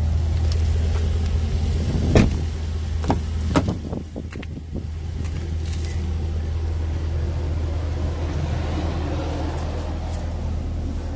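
Jaguar F-Pace SVR's supercharged 5.0-litre V8 idling, a steady low drone heard inside the cabin. A few knocks from handling come between about two and four seconds in.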